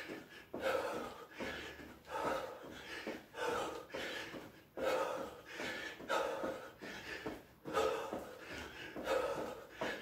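A man breathing hard in a steady rhythm while doing jumping jacks, one loud breath roughly every jump.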